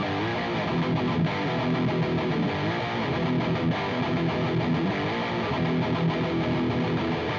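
Electric guitar played through a JOYO Dark Flame distortion pedal, a clone of the Revv G3, giving a heavily distorted tone. It plays continuous riffs and chords with a few sliding or bent notes.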